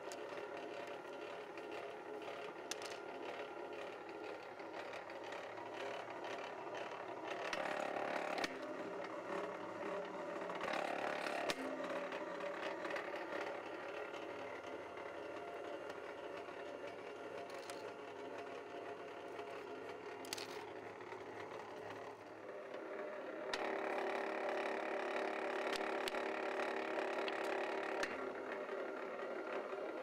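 Motorized wire stripping machine (BLUEROCK MWS-808PMO, 1 HP electric motor with gear-driven cutter and roller) running with a steady mechanical hum. It gets louder and busier in short stretches near 8 and 11 seconds and for several seconds near the end, as 10-2 Romex cable is fed through the blades.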